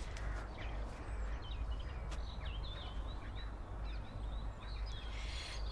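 Outdoor birdsong: a run of quick chirps and short warbling, gliding notes, over a steady low background rumble, with a couple of brief faint clicks.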